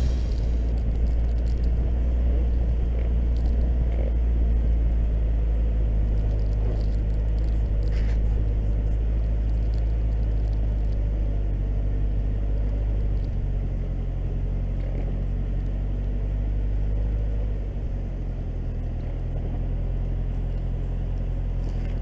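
Toyota 4x4 engine running under load as the truck pushes through deep snow, a steady low rumble. The engine note drops twice in the second half.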